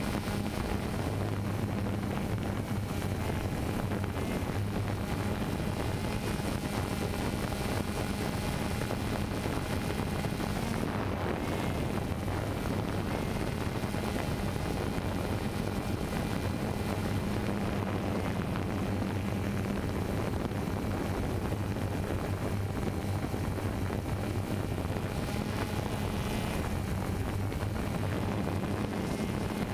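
DJI Phantom 2 quadcopter's motors and propellers humming steadily, heard through the GoPro mounted on the drone itself.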